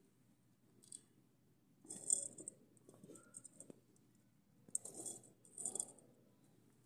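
Iron kadhai rattling and clinking faintly in a few short bursts as it is shifted and settled on a clay chulha.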